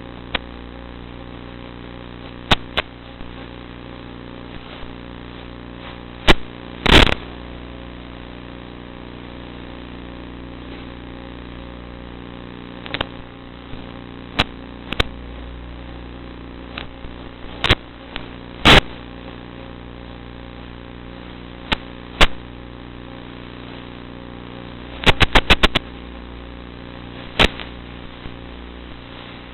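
Electric motor and propeller of a Zagi FPV flying wing running as a steady hum of several tones, broken by sharp clicks and cracks scattered throughout, with a quick rattle of five or six clicks about 25 seconds in.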